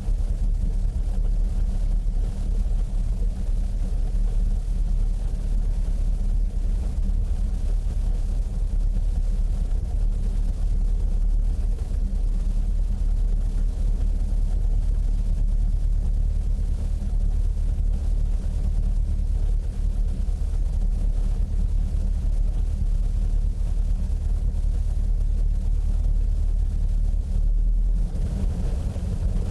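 Piston engine and propeller of a high-wing light aircraft idling on the ground: a steady, low rumble. The sound shifts slightly near the end as the plane begins to taxi.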